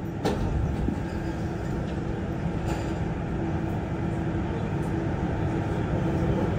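Siemens VAL 208 rubber-tyred automatic metro car running, heard from inside the car: a steady low rumble from the tyres and running gear with a steady motor hum, growing slightly louder, and a couple of short clicks.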